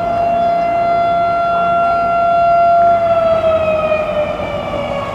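Civil defense tsunami warning siren sounding one loud, steady tone with strong overtones. About three seconds in, its pitch starts to slide slowly downward.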